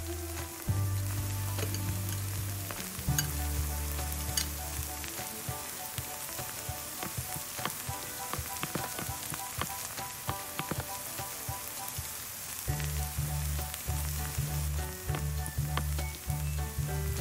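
Food sizzling in a miniature frying pan, with scattered small clicks, over background music with a stepped low bass line.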